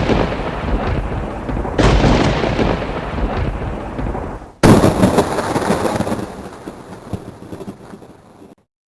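Heavy booms, each fading away into a long rumble: one is already dying off at the start, a second hits about two seconds in, and the loudest comes at about four and a half seconds and fades for several seconds before cutting off abruptly near the end.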